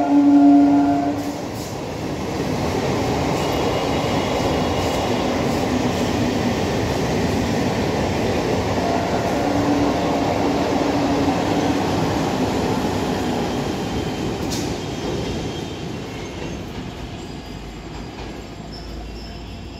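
Old EMU electric local train: the end of its horn about a second in, then the train rolling slowly past on the next track. It makes a steady rumble of wheels on rails with a faint wheel squeal, and fades near the end.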